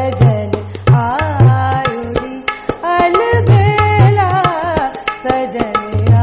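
A woman singing an ornamented, gliding Hindustani classical line in raag Bhupali, accompanied by tabla with repeated deep bass-drum strokes.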